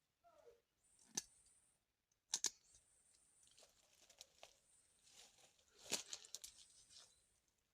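Faint handling noises: scattered sharp clicks and soft rustling, the loudest clicks about two and a half and six seconds in.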